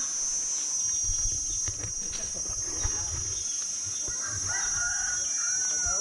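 A rooster crowing once, about a second long, in the second half, over a steady high insect chirring.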